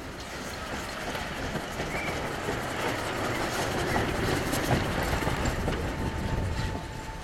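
ČSD class 423.0 steam tank locomotive passing close by under steam, with the rumble of its running gear on the rails. It grows louder to a peak about four to five seconds in, then eases off.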